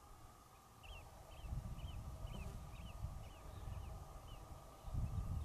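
A bird calling repeatedly, about eight short chirps at roughly two a second, over low rumbling and thumping noise that grows loudest near the end.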